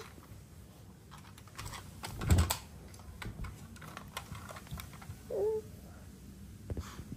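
Irregular light clicks and taps of a small plastic toy car being handled, with one louder bump about two and a half seconds in.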